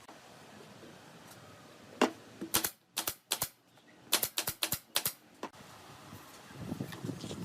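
A quick, irregular series of about a dozen sharp knocks over roughly three and a half seconds, followed by faint handling noise.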